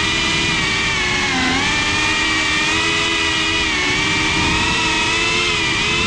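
FPV quadcopter's electric motors and propellers whining steadily, the pitch wavering up and down with throttle changes, with a dip about a second and a half in, over a rough rushing noise.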